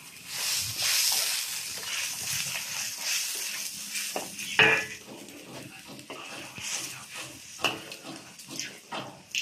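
Liquid hissing and sizzling as it hits a hot iron wok over a wood fire, dying down after a couple of seconds. Then a metal ladle stirs and scrapes in the wok with scattered knocks, and one louder, sharper sound comes about halfway through.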